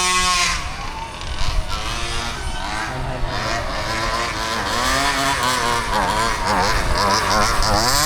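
Two-stroke engine of an HPI Baja 5B large-scale RC buggy being revved. It is held high at first, drops about half a second in, wavers up and down with the throttle through the middle, and climbs back to a steady high rev near the end.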